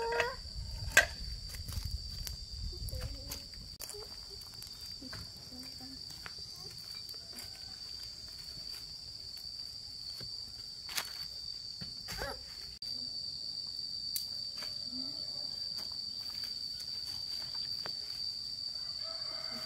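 Steady high-pitched insect drone, such as crickets, with scattered clicks and knocks, the loudest knock about a second in.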